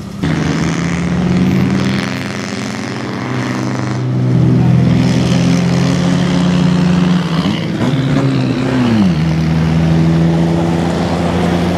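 Engines of several 4x4 off-road vehicles running as they drive across a lot. About eight seconds in, one engine revs up and back down.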